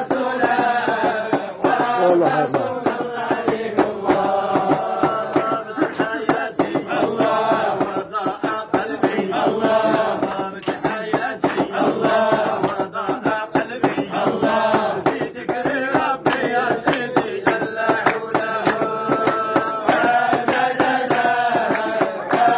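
A group of men chanting a Sufi dhikr together, singing madih, praises of the Prophet, in long held, melodic lines that run on without a break.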